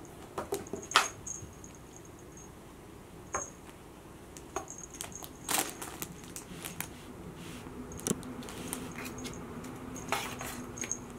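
A kitten playing with a string wand toy: light metallic jingling in short bursts, with sharp taps and knocks as it bats and wrestles the toy, the loudest about a second in and again about five and a half seconds in.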